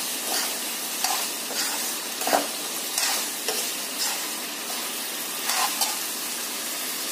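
Chopped capsicum and potatoes sizzling in oil in a metal kadai while a metal ladle stirs and scrapes through them. The repeated scraping strokes sit over a steady frying hiss.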